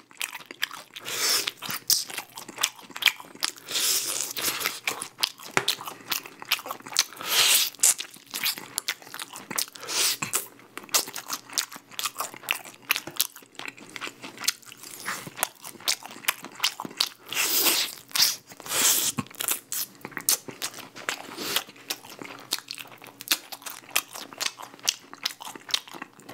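Close-miked crunching and chewing of crispy-coated Goobne Honey Curry Basasak chicken, a dense run of crackly bites and chews.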